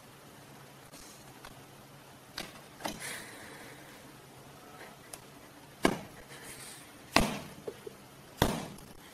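Cats' paws slapping a hard surface as two cats swat at each other: a few sharp knocks, two softer ones and then three loud ones spaced about a second apart in the second half.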